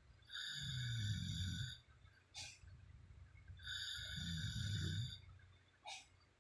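A sleeping woman snoring: two long snores about three seconds apart, each with a low rattle topped by a high whistling tone. Two short clicks fall in the gaps between them.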